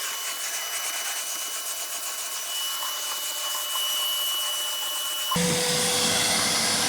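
GNE 2200-watt vacuum cleaner running with its brush head on carpet, a steady noise with a thin whine. About five seconds in it turns louder and deeper, with a lower steady hum.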